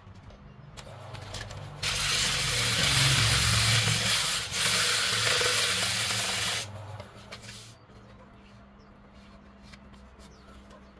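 Hand-held sandpaper pressed against a spinning wooden vessel on a wood lathe gives a loud hiss from about two seconds in until about six and a half seconds, with a brief dip in the middle. Under it the lathe's motor hums steadily, and the hum is left alone after the sanding stops.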